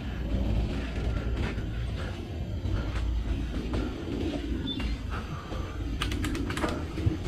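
Mountain bike being ridden over a rough dirt trail: a steady low rumble with scattered creaks and rattles from the bike, and a quick run of sharp clicks about six seconds in.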